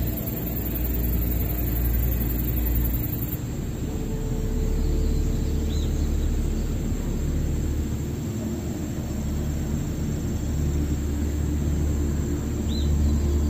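Slow ambient background music of long held tones over a steady low rumble, with two brief high chirps, one about six seconds in and one near the end.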